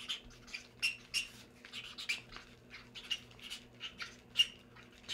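Trading cards being handled and sorted: a run of short, irregular squeaky rubs and scrapes, with one sharper, louder one near the end.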